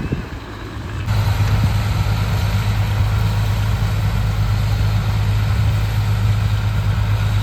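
Tractor engine running steadily with a deep, even hum. About a second in it becomes suddenly louder and fuller, then holds steady.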